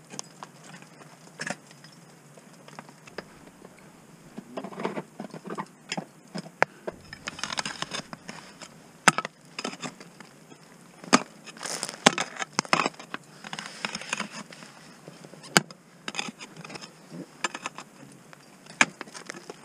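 Ice axe picks striking and scraping on thin ice and rock during mixed climbing: irregular sharp strikes with scratchy scraping between them.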